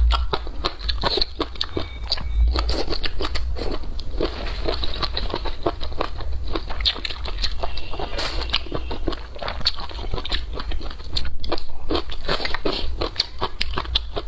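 Close-miked eating: a rapid run of crisp crunching bites and chewing of crunchy food, with a steady low rumble underneath.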